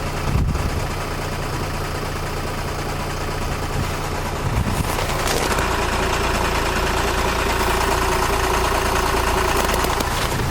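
WT5GP diesel engine idling cold in about −18 °C frost, with a knock that the owner puts down to the flywheel. A single click comes about half a second in, and about five seconds in the sound grows fuller as a higher hum joins.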